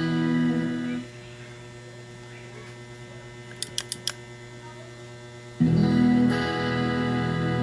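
Guitar played through a harmonizer pedal rig: a held note rings and stops about a second in, leaving a steady electrical mains hum from the signal chain. Four quick clicks come midway, and the guitar starts playing again near the end.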